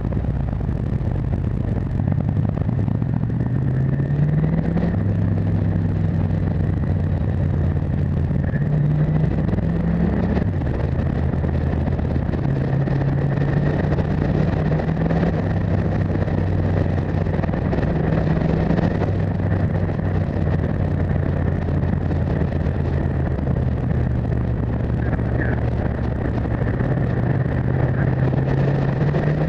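Motorcycle engine running under way, heard from on the bike, its note rising and falling several times with the throttle, over a steady rush of wind and road noise.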